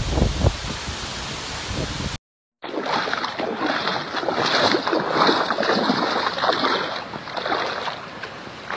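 Hurricane wind gusting against the microphone with driving rain, a low buffeting rumble under the hiss. A bit over two seconds in it cuts briefly to silence, then to a duller recording of a flooded street filled with a rough, rushing noise of wind and water.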